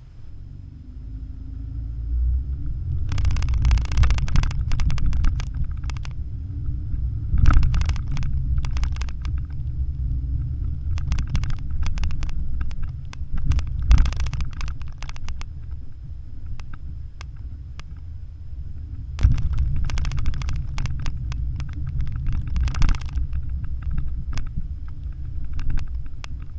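Porsche Macan driving slowly over a rutted sandy dirt track, heard from inside the cabin: a heavy low rumble of tyres and suspension, broken by several bouts of sharp knocks and rattles as the car goes over bumps.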